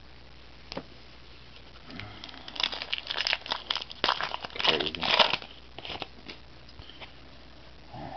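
A foil trading-card pack wrapper crinkling and tearing as it is ripped open by hand. It is a quick run of crackly rustles lasting about three seconds, starting about two seconds in, with a single light tap shortly before.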